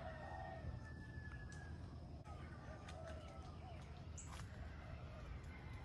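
Faint, distant bird calls, a few thin drawn-out notes, over a low steady background rumble.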